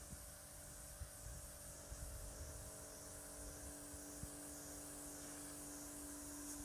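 Bosch AQT 45-14X electric pressure washer running, its motor and pump humming steadily, with the hiss of the water jet striking paving slabs.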